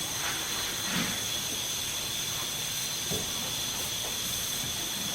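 Steady hiss with two faint high steady tones, and a few faint knocks and clinks of hood hinge hardware being worked, about one and three seconds in.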